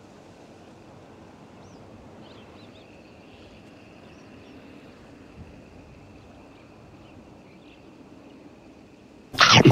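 Outdoor shoreline ambience: a steady low hiss with a faint high steady tone and a few small bird-like chirps. Just before the end comes a sudden loud bump or rustle close to the microphone, lasting under half a second, followed by a weaker one.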